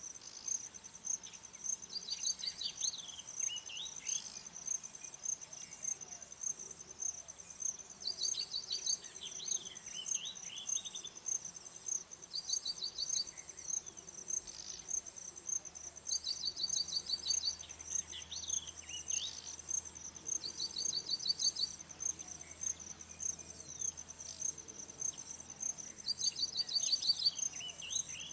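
Baya weaver song: a short rapid ticking trill followed by wheezy swooping notes, repeated six times, every four to six seconds. Under it an insect, likely a cricket, chirps in a steady high pulsing run throughout.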